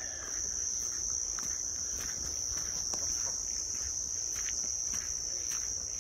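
A steady, high-pitched insect chorus holding one unchanging shrill note, with light footsteps on a dirt track.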